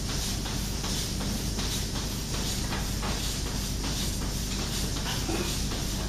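Milking machine working on goats in a milking parlour: a steady vacuum hiss and hum with a repeating hissing pulse from the pulsators about once or twice a second.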